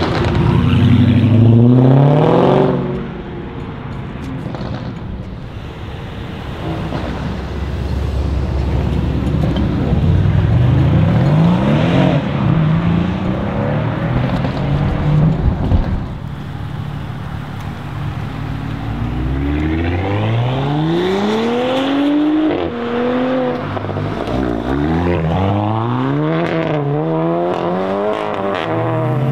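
Several performance cars accelerating hard one after another, their engines rising in revs and stepping up through gear changes. The loudest run, around the middle, ends in a few sharp exhaust cracks; another car climbs through the revs in the last third.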